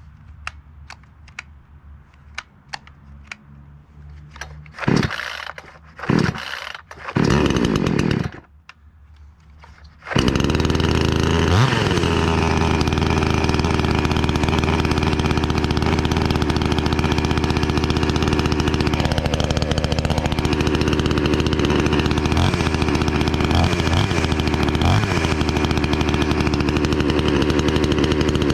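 Wemars WS-6220G 62cc two-stroke chainsaw on its first cold start: a few faint clicks, then three hard pulls on the starter cord, and about ten seconds in the engine catches and keeps running steadily, with small dips in speed.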